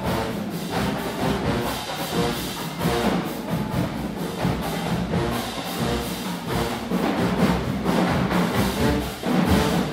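Marching band playing: brass over steady drum hits.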